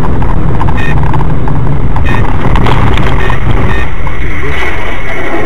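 Loud, distorted vehicle and road noise with a heavy low rumble and a few short knocks; the rumble eases about four seconds in, leaving a steady high whine.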